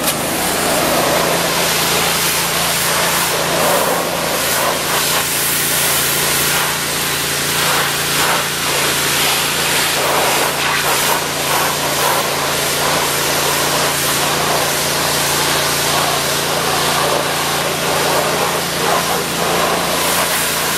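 Gas pressure washer's fan-tip spray hissing loudly as it blasts against wooden fence boards, over the steady running of its small gasoline engine.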